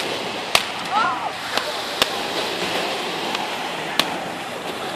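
Aerial fireworks bursting: about five sharp bangs at uneven intervals, over steady crowd chatter.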